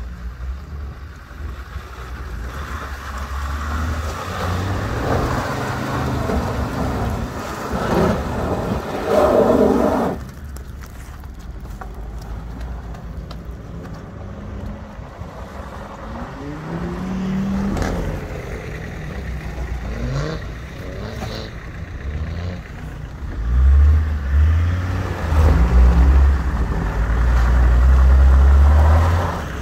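Off-road 4x4 engine running and revving, with loud low revs in several bursts over the last six seconds.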